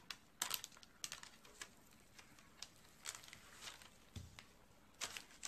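Faint, scattered rustles and light taps of baking parchment and filo pastry as hands settle a rolled filo log onto a parchment-lined baking tray, with a soft thump about four seconds in.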